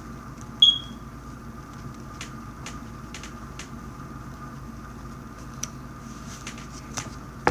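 A single short high-pitched beep about half a second in, then scattered light clicks over a steady low hum.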